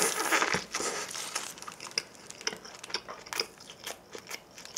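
A bite into a McDonald's bulgogi burger with its paper wrapper crinkling in the first half second, then close-miked chewing with scattered soft clicks.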